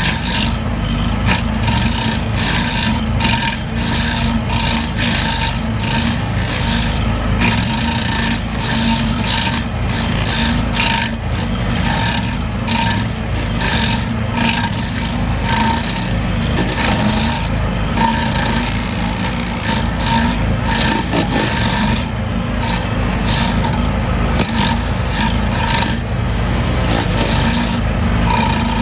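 A motor running steadily under a continuous run of irregular rasping, scraping strokes.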